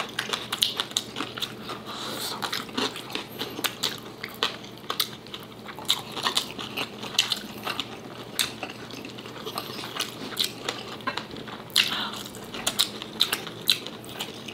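Close-miked eating: irregular sharp clicks of chewing and lip smacks while food is eaten by hand, with fingers picking at the food on the table.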